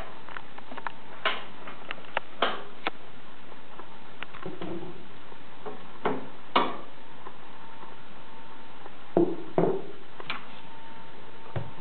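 Scattered light clicks and knocks of wire and plastic as a wire basket insert is set down and shifted inside the plastic liner of a compressor cool box and bottles are moved. The sharpest knocks come about halfway through and twice more near the end.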